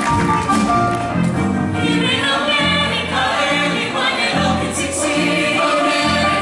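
Show choir singing together over instrumental accompaniment, with a low bass line stepping through its notes under the held vocal chords.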